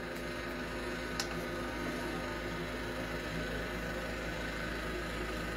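Steady background hiss and low hum with no clear event, and a single faint click about a second in.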